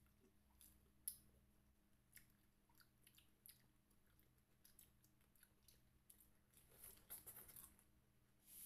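Faint close-up chewing and biting of juicy fresh pineapple, with scattered small wet clicks and a denser spell of chewing about seven seconds in.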